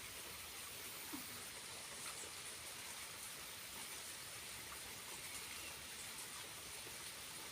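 Small waterfall's water falling and splashing, a faint steady hiss, with one short faint sound about a second in.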